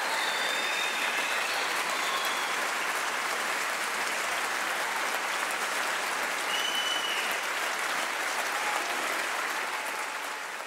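Large audience applauding steadily in a concert hall at the end of a performance.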